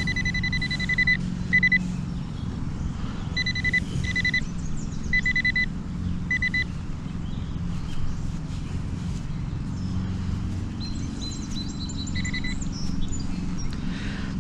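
Metal detector beeping over a buried metal target: a long steady high tone at first, then a string of short beeps, and one more later on. A steady low hum runs underneath.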